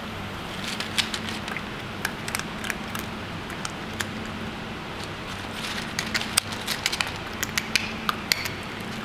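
A cat eating, its chewing making irregular wet clicks and crunches, thickest in a quick run near the end, over a steady low hum.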